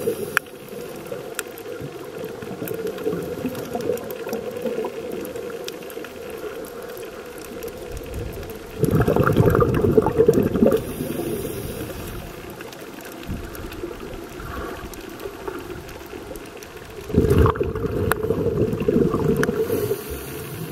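Underwater recording: steady muffled water noise with loud bubbling bursts of two to three seconds each, about nine and seventeen seconds in.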